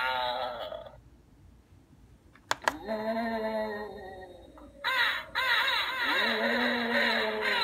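Battery-powered Halloween skull path markers playing their built-in spooky sound effect through a small speaker: pitched, gliding sounds with a short quiet gap, a sharp click about two and a half seconds in, then a fast run of rising-and-falling pitched sounds from about five seconds in.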